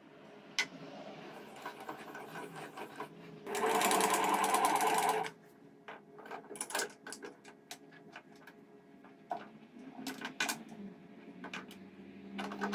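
Benchtop milling machine humming steadily while metal parts click and knock against its vice and table. About three and a half seconds in, a loud mechanical rattle lasts nearly two seconds.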